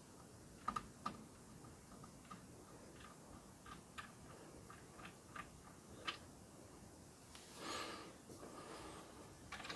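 Faint, irregular light clicks of small parts and a screw being handled inside a boombox's cassette deck, with a brief soft rustle about three-quarters of the way through.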